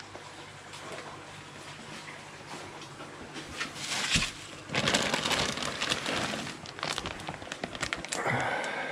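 Plastic fish-transport bags being handled, rustling and crackling with many small clicks, louder from about four seconds in.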